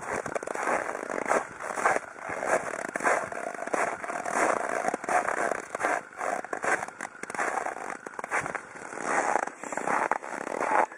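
Footsteps crunching through snow: a steady walking rhythm of crunches, one step after another.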